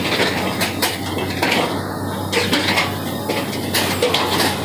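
Track relaying train at work: a steady low machine hum under irregular metallic clanks and knocks.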